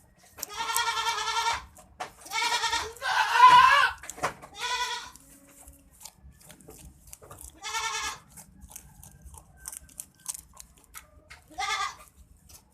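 An animal bleating: about six short, wavering calls spaced a second or more apart, the third the loudest.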